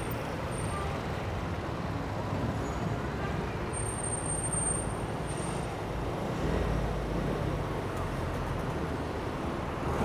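Steady city street traffic noise from cars and buses passing on the road, with a low rumble swelling about six and a half seconds in.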